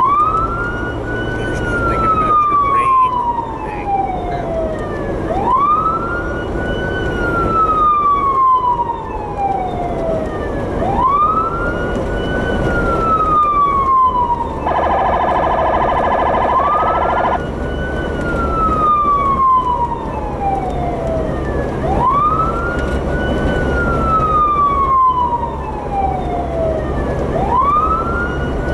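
Electronic police siren mounted on a Jeep sounding a wail: each cycle climbs quickly in pitch, then falls slowly, repeating about every five and a half seconds. About halfway through, the wail gives way for nearly three seconds to a steady buzzing horn tone, then picks up again. A low vehicle rumble runs underneath.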